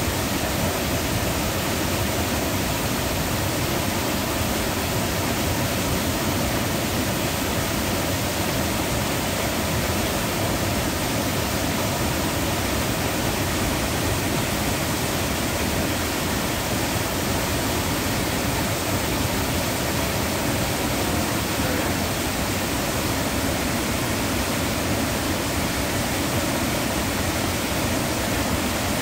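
Water spilling over a small dam in two short falls onto rocks below, a steady, even rush of falling water.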